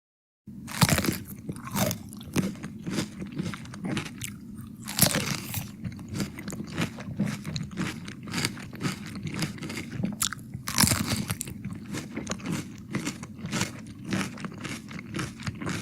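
Close-up recording of someone biting into and chewing crunchy raw bell pepper and cucumber. It is a run of wet crunches, with louder bites about a second in, about five seconds in and about eleven seconds in.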